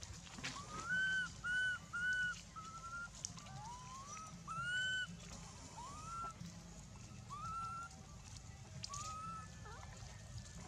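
Infant long-tailed macaque giving a string of short, high coo calls, some arched and some rising in pitch, about ten in all: a baby's begging cries to its mother.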